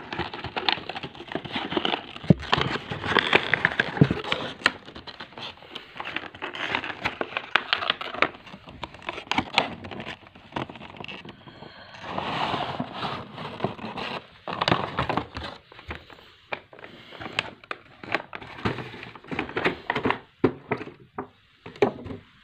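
Clear plastic blister packaging and a cardboard box being handled and pulled apart to unpack a toy remote-control car, crinkling and crackling with many sharp clicks.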